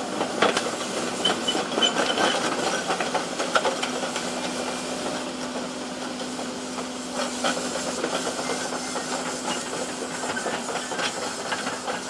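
Hidromek 140 crawler excavator running and moving on a steep slope, with a constant hiss, many small clanks and knocks, and a steady engine hum from about four seconds in.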